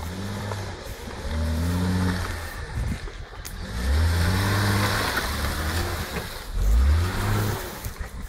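Hyundai Santa Fe SUV's engine revving under load as it climbs a rutted mud track, the revs rising and falling in three surges.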